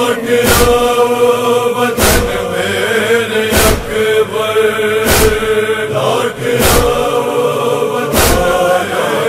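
Interlude of a Shia noha: a chorus of voices holds a steady, drawn-out chant, over a heavy thumping beat that strikes about every one and a half seconds, the rhythm of matam chest-beating.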